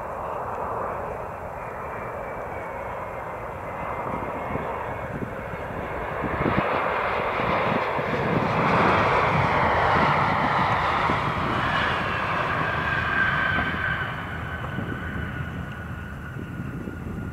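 Embraer E175 regional jet's turbofan engines on landing, the jet noise swelling to a peak in the middle and easing off again, with an engine whine that slowly falls in pitch in the second half.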